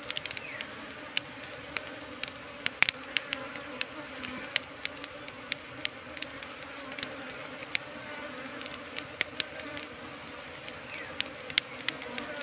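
A colony of wild honey bees buzzing steadily around their nest as it is being smoked, with frequent sharp clicks over the hum.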